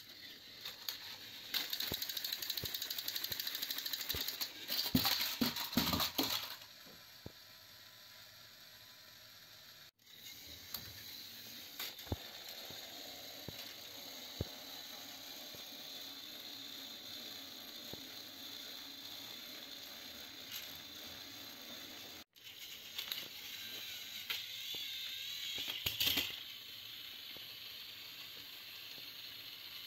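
Battery-powered toy train engines running on plastic track: small electric motors whirring, with their plastic gears and wheels rattling and clicking. The rattling is loudest in the first few seconds and again a little after the middle.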